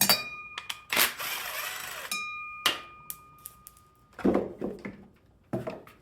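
Metal tools and small carburetor parts clinking and knocking as the float bowl is worked off a lawn mower carburetor. Two of the strikes leave a brief metallic ring, and two duller knocks come near the end.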